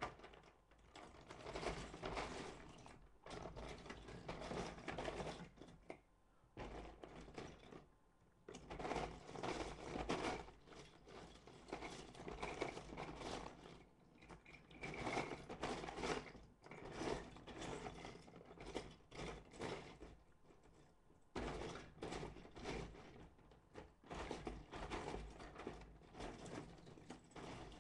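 Loose plastic Lego bricks clicking and rattling as they are handled and picked through, in bursts of a few seconds with short pauses between them.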